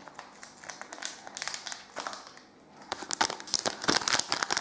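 Foil blind-bag packet crinkling as hands work at it to tear it open. Sparse and quiet at first, it grows denser and louder from about three seconds in.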